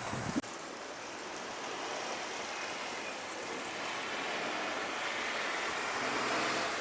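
Steady rush of a road vehicle passing over a level crossing, growing slowly louder, with one sharp click about half a second in.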